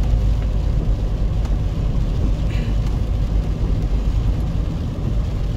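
Steady low rumble of a car's engine and tyres heard from inside the cabin while driving on a wet road.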